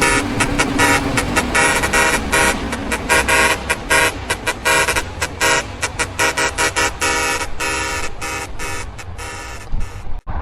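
Custom truck air horn playing a fast run of short, chopped blasts, several a second, loud throughout; it cuts off abruptly near the end.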